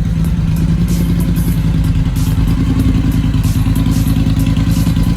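2020 Triumph Bobber's 1200 cc parallel-twin engine idling steadily through an aftermarket British Customs turnout exhaust, with a loud, even, fast exhaust pulse.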